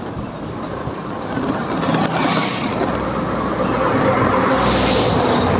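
A dump truck's diesel engine grows louder as it approaches and passes close by in the oncoming lane, over wind and road noise from a moving scooter.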